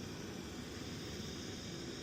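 Blow lamp flame burning steadily with an even rushing hiss as it heats a copper pipe fitting for soldering.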